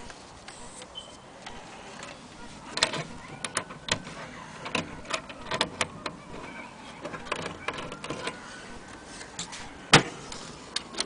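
Irregular clicks and knocks from handling a wooden wall clock's case, glass door and pendulum rod, with one louder knock near the end.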